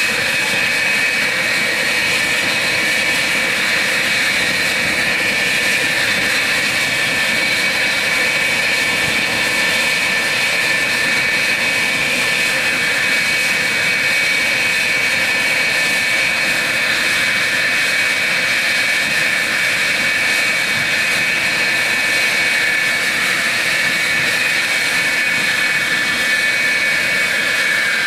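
F-4F Phantom's twin J79 turbojets idling on the ground: a steady, loud jet whine with high tones over a rushing roar. Near the end one tone dips slightly in pitch.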